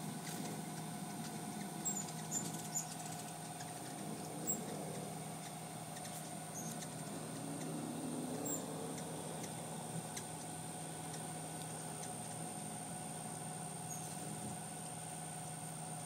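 Several hummingbirds buzzing around a feeder: the wing hum wavers in pitch as birds dart in and out, with short high squeaky chips scattered through, about eight in all.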